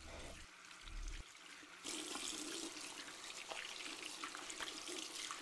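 Tap water running in a thin stream from a mixer faucet into a stainless steel sink. It starts suddenly about two seconds in, after two short low rumbles.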